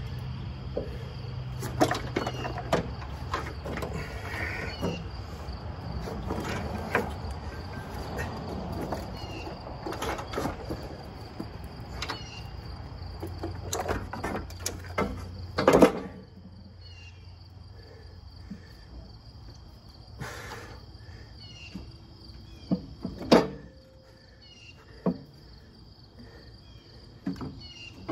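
Scattered metal clunks and scrapes as a Jeep 4.0 inline-six cylinder head is worked into place on the engine block, with one heavy clunk a little past halfway. Insects chirp steadily behind it.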